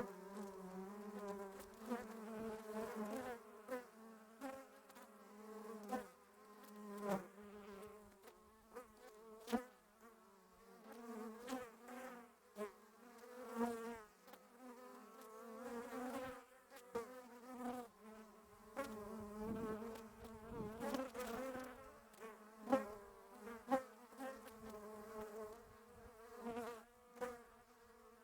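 Honey bees buzzing, a steady hum whose pitch wavers and whose loudness swells and dips as bees fly past close, with small clicks and taps mixed in.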